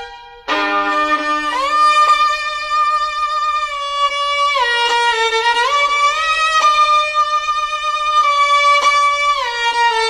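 Instrumental background music: a melody of long held notes that glide from one pitch to the next, after a brief break near the start.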